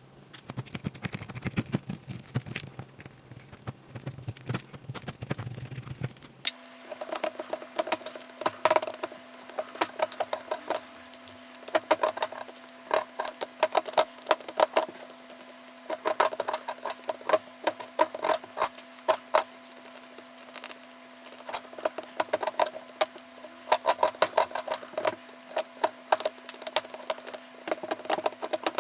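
Bursts of rapid scraping and chipping clicks as a small tool digs into the plaster block of a gemstone excavation kit. A steady faint hum comes in about six seconds in.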